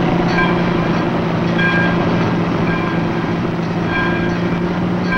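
Several motorcycle engines running steadily as a group rides along: a continuous drone, with short higher tones recurring about once a second.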